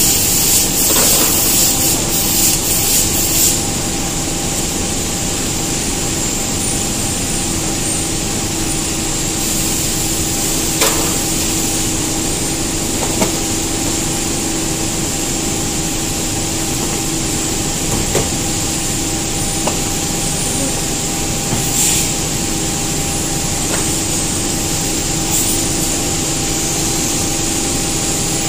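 Steady machine-shop hum from running machinery, with a high hiss for the first few seconds. A few short, sharp metallic clicks of a hex key turning the clamp screw of a carbide insert in a steel tool holder.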